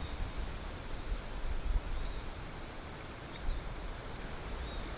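Steady high-pitched drone of insects in the trees, one constant whine. Irregular low rumbles on the microphone come in the first two seconds and again briefly past the middle.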